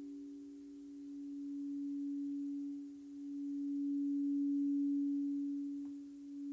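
A sustained meditation drone: one steady low tone with fainter tones just above it, swelling and fading in slow waves, dipping about every three seconds.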